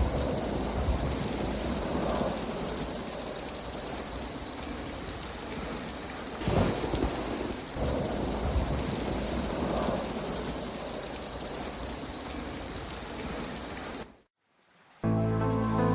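Thunderstorm: steady heavy rain with rolling rumbles of thunder, the loudest about six and a half seconds in. It cuts off suddenly near the end, and a moment later music starts over lighter rain.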